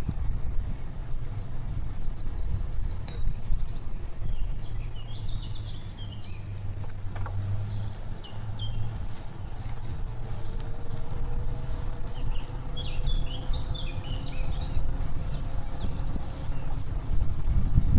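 Small songbirds singing in the trees and hedges, with short chirps and a couple of fast trills, heard over a steady low rumble from riding a bicycle along a paved path.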